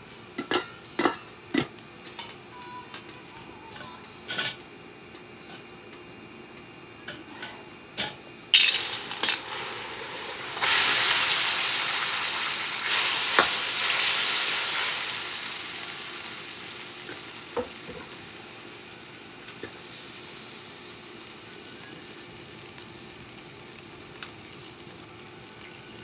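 Utensils clicking against a pan, then food going into hot oil with a sudden loud sizzle that swells once more and slowly dies down to a low steady frying hiss.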